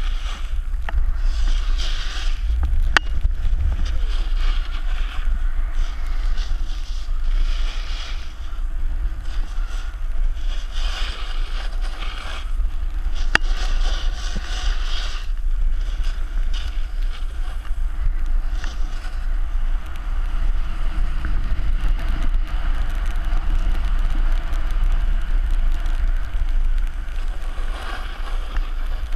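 Wind buffeting a pole-mounted GoPro Hero 3's microphone with a constant low rumble while riding down a snowy run, and swells of hissing scrape from snow sliding under the rider. Two sharp clicks, about 3 seconds in and about 13 seconds in.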